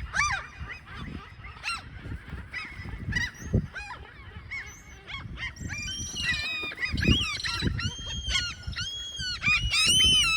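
Several gulls calling over one another in short, repeated arched cries, sparse at first and thickening into a dense chorus from about halfway through. These are parent gulls' alarm calls at intruders near their chicks.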